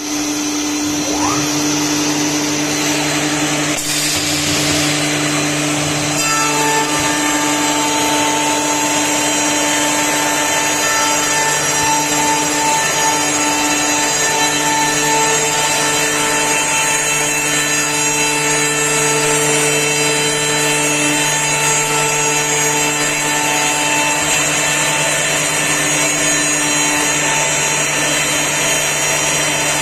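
Double-sided CNC copy milling machine running and cutting wood: a loud, steady machine noise with several held whining tones, shifting in tone about six seconds in.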